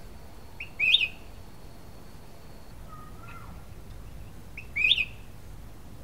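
Cucak kuning bulbul giving two short, loud chirps about four seconds apart, each a quick rising note, with a fainter, lower note between them.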